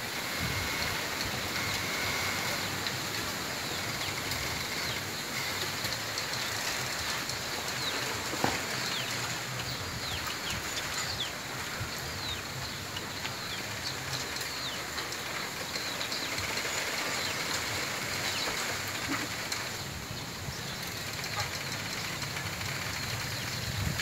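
Wind through a bamboo grove: the leaves rustle steadily, with scattered short high-pitched squeaks and an occasional sharp crack from the stems.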